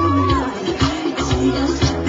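Pop music with a steady beat, a melody over sustained bass notes, playing as accompaniment to a dance routine.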